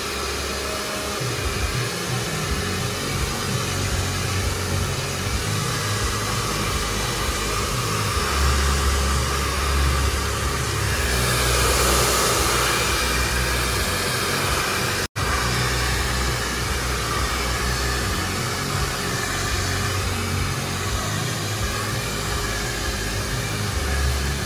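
Hand-held hair dryer blowing steadily while hair is blow-dried. It drops out for an instant about fifteen seconds in.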